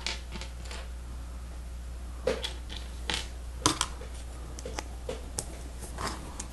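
Hard plastic Lego Technic pieces clicking and tapping as they are handled and pressed together: scattered, irregular clicks, the loudest about two and three and a half seconds in, over a steady low hum.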